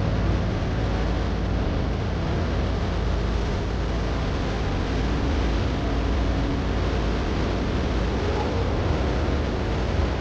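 A boat's engine running steadily, a constant low rumble with rushing noise over it.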